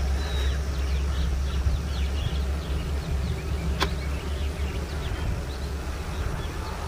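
Outdoor field ambience: a steady low rumble under a dense chorus of many short, high bird chirps overlapping one another, with a single sharp click about four seconds in.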